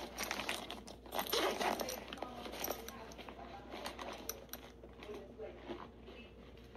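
Muffled, indistinct talking mixed with scattered crinkling and crunching sounds.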